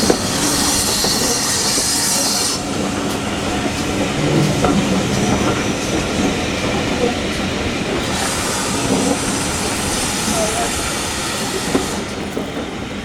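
A heritage railway train running along the track, with steady rumble and wheel clatter. Two stretches of hissing come through: one fades out about two and a half seconds in, and the other runs from about eight to twelve seconds.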